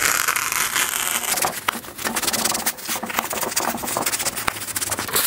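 Foam swimming pool noodles rubbing and scraping against one another and against a carpeted board as they are handled and laid down, a continuous rough rubbing sound with many small clicks.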